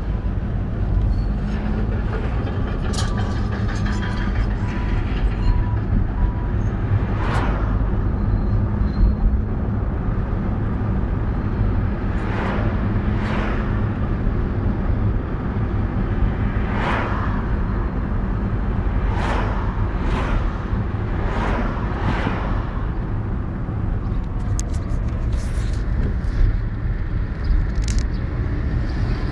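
Car cabin noise while driving: a steady engine and road rumble, with several short hisses spread through it.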